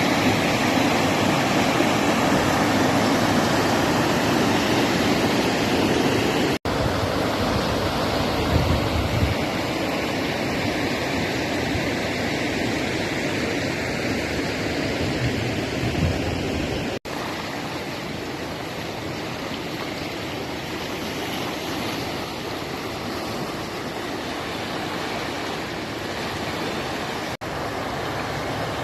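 Fast-flowing brown floodwater from a flash flood rushing across a road and around houses: a steady, loud rush of water, broken by three brief dropouts.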